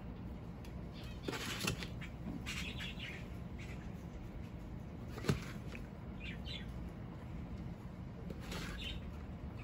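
Bare hands pressing and working loose potting mix of leaf mould and pumice around a plant's roots in a plastic pot: several short gritty rustles, with a sharp tap about five seconds in.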